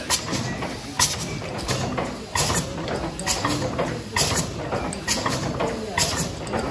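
Mill steam engine running, with a sharp click repeating a little under once a second over a steady mechanical background and faint voices.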